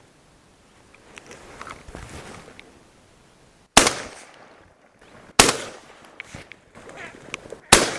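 Three shotgun shots, about two seconds apart, the second and third slightly closer together than the first two. Each is a sharp crack with a short echo trailing after it.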